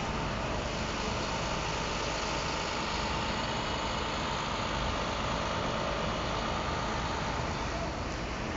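Steady city-street traffic noise, with vehicle engines running and idling.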